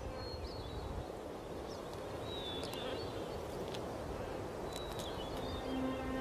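Outdoor nest ambience: a steady hiss with several faint, short, high bird chirps, each gliding slightly in pitch, and a few light ticks. Soft music with a sustained low note comes in near the end.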